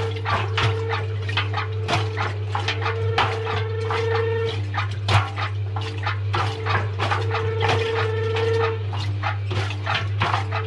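Washing machine drum tumbling balloons and cubes: a steady motor hum under frequent irregular knocks and rubbery squeaks, with a whine that comes and goes.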